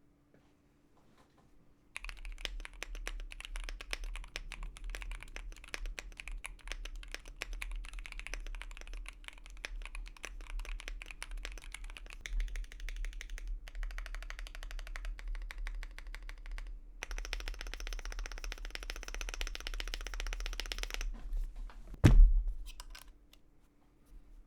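Fast, continuous typing on a mechanical keyboard: a dense run of key clicks and clacks that starts about two seconds in and shifts character a couple of times, then stops, followed by one loud thump near the end.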